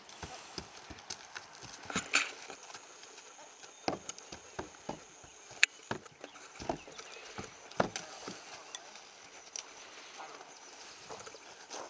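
A Quarter Horse mare's hooves knocking on wooden box platforms and the dirt around them as she steps up, across and off: irregular hoofbeats, with a few sharper, louder knocks.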